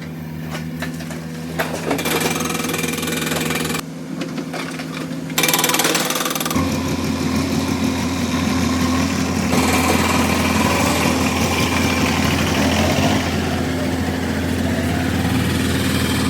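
JCB 3DX Plus backhoe loader's diesel engine running, with a hydraulic breaker working close by. The machine noise gets louder about six and a half seconds in.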